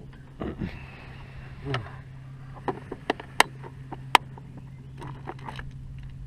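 Campfire burning, with a handful of sharp pops and cracks from the wood about three to four seconds in, over a low steady hum.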